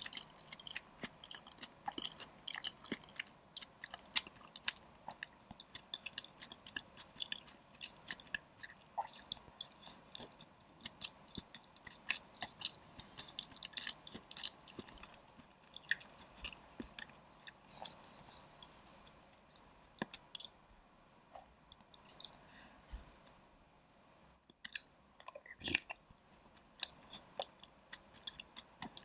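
Close-miked chewing with irregular wet mouth clicks and smacks, several a second, from someone eating MeetFresh-style taro soup with chewy taro balls and boba.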